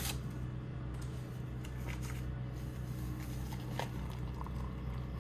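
A steady low hum with a few faint light clicks and knocks of cookware being handled at a stovetop.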